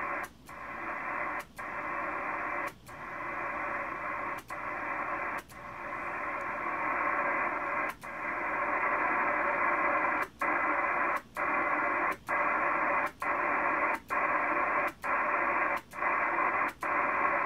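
Kenwood TS-830S HF transceiver's receiver hissing with band noise through its speaker. About fourteen brief dropouts break the hiss, each with a click, as the microphone is keyed and released, coming about once a second in the second half. The hiss returns at full level after each release: the freshly cleaned antenna relay is passing the antenna signal again instead of attenuating it.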